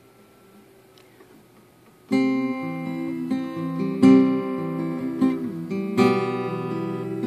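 Faint room tone, then about two seconds in a guitar starts the song's instrumental intro: chords struck about once a second, their notes ringing on between strikes.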